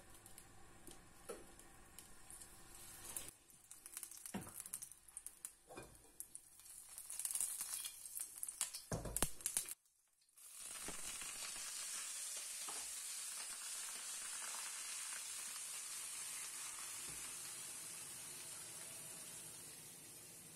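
Cooking oil poured into a hot wok over dried red chillies, with scattered knocks and clatter, then after a brief break about halfway a steady sizzle of the chillies frying in the hot oil. The sizzle eases slightly near the end.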